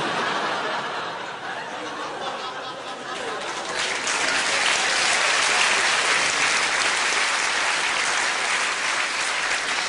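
A large theatre audience applauding; the clapping swells noticeably louder about four seconds in and carries on steadily.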